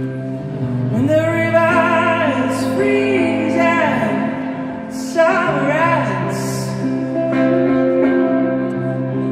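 Live band music: sustained electric guitar and keyboard chords under a singing voice, which comes in with two long phrases of wavering, vibrato-laden notes, about a second in and again about five seconds in.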